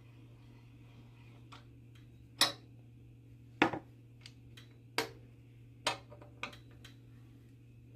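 Hand tools and bike parts knocking and clicking during assembly work: about five sharp, loud knocks at uneven intervals, with a few fainter clicks between them, over a steady low hum.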